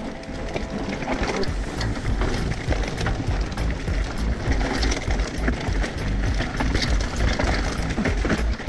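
Background music over the continuous rattle and clatter of a mountain bike descending a rough dirt trail, with many short knocks from the bike and tyres on the bumps.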